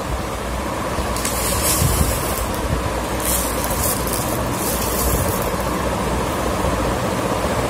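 Steady background rumble and hiss, with three brief hissy bursts between about one and five seconds in.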